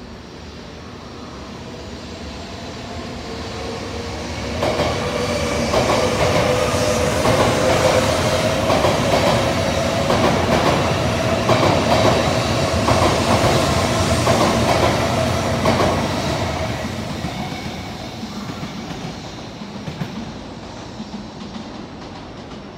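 N700-series Shinkansen bullet train passing close by. The rumble builds over the first few seconds and the train goes by for about eleven seconds with a rhythmic clatter of wheels over the rails and a steady whine, then it fades as the train moves away.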